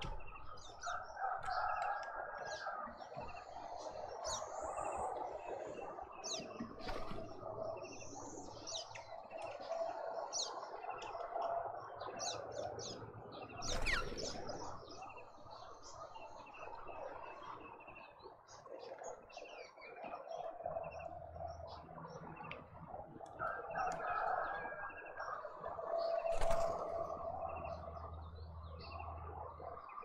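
Garden birds calling and chirping: many short, high chirps from several birds over a steady lower chatter, with one louder sweeping call about halfway through.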